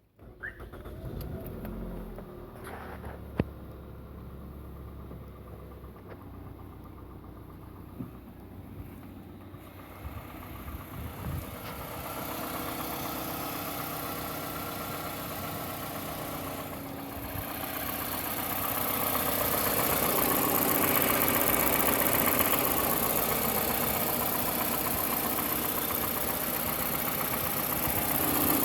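Toyota 1AZ-FSE D4 direct-injection 2.0-litre four-cylinder engine idling with a knocking or pinging noise. The owner cannot tell whether it comes from the upper or lower engine, and it goes away at high revs. The sound gets louder about two-thirds of the way through.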